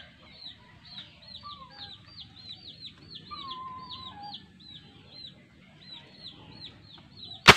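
Birds chirping repeatedly in the background, short high calls about two a second, then near the end a single sharp pop as a homemade PVC gas-powered toy rifle fires.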